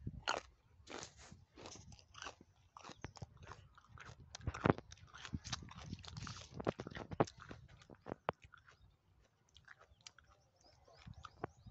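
Irregular dry crackling and rustling close to the microphone: ber tree leaves and twigs brushing and scraping against the phone as it pushes through the branches. The crackles thin out about two-thirds of the way through.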